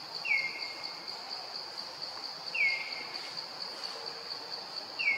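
Steady, slightly pulsing high-pitched drone of insects, with a bird's whistled call repeated three times about two and a half seconds apart. Each call drops quickly in pitch and then holds briefly.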